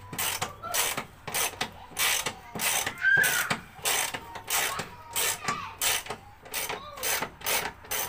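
Hand socket ratchet clicking in repeated back-and-forth strokes, about two or three a second, undoing a guard bolt.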